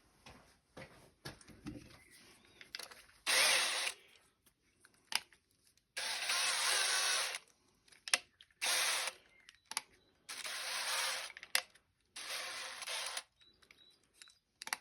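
Electric drill with a small bit run in five short bursts, drilling small holes, with light handling clicks before the first burst.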